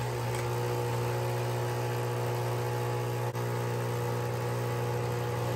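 Nespresso capsule machine's pump running steadily while it brews a shot of coffee into the cup, a loud even hum with one brief click about three seconds in.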